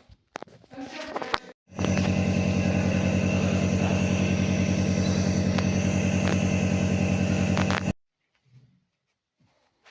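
A motor running steadily at an even, pulsing pitch. It cuts in abruptly about two seconds in and stops suddenly near the end.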